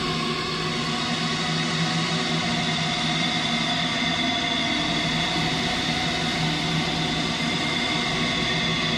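Dark ambient drone music: many steady held tones layered over a continuous hiss, with no beat and no change in level.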